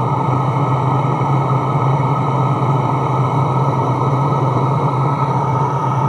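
Chinese diesel air heater running steadily near full heat, its exhaust without a muffler: an even rush of fan air and burner over a steady low hum.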